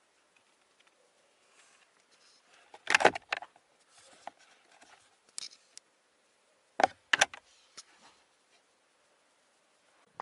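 Plastic storage compartment in a car's interior being handled: a loud clatter of clicks as it is opened about three seconds in, a few light rattles, then another sharp clack as it is shut about four seconds later.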